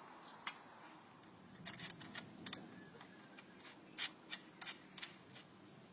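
Faint, scattered light clicks and knocks of small parts being handled: a long screw and a wooden dowel being fitted to a bicycle frame where the kickstand was. The clicks come in a loose cluster around the middle and again near the end.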